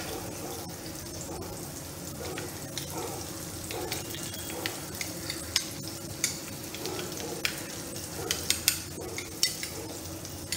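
Pointed gourd pieces frying in oil with a steady sizzle, while a spoon stirs spiced yogurt in a glass bowl, making scattered light clicks against the bowl, more often in the second half.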